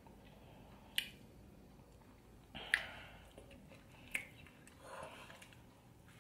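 A person chewing a mouthful of burger close to the microphone: soft wet chewing, with three sharp clicks spaced a second or so apart.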